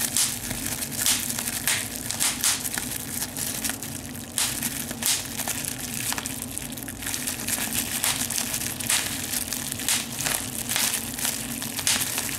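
Bubble wrap squeezed between the fingers, its bubbles popping one after another at uneven intervals amid the crinkling of the plastic.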